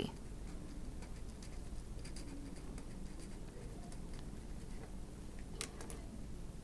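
Felt-tip marker writing on paper: faint scratchy strokes and small ticks as the words are written, then a quick pair of sharp clicks near the end.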